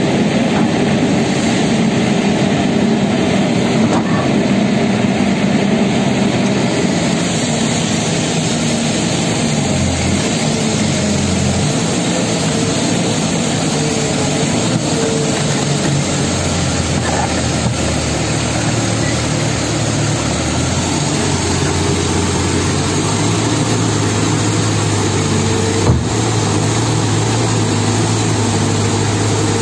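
Kobelco SK200 excavators' diesel engines running steadily while the machines dig in mud; the low engine note shifts in pitch from about halfway through. One sharp knock near the end.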